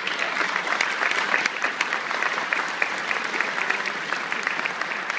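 An audience applauding: dense, steady clapping from many hands, easing slightly toward the end.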